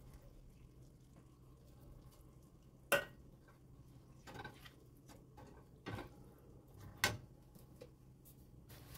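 Plastic slotted spatula knocking and clinking against a nonstick frying pan while stirring in coconut milk: a few short sharp knocks, the loudest about three seconds in, over a faint steady hum.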